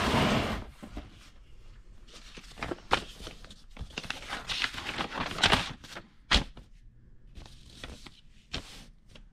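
Handling of a cardboard box and plastic packaging: crinkling and rustling, loudest in the first second, then scattered knocks and clicks with the rustle of a paper instruction sheet being picked up.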